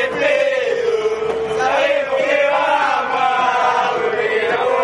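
A crowd of football supporters chanting a terrace song together, many male voices singing the tune in unison without a break.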